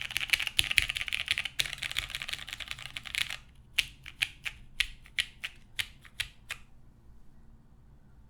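Mechanical keyboard with lubed vintage Cherry MX Brown switches on a polycarbonate plate, typed on rapidly at first. A little past three seconds in the typing slows to about a dozen separate keystrokes, then stops before the end.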